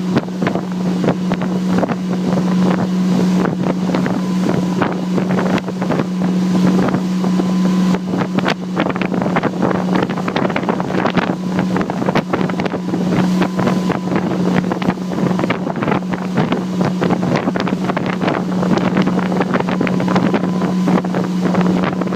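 Motorboat engine running at a steady pitch, with wind buffeting the microphone.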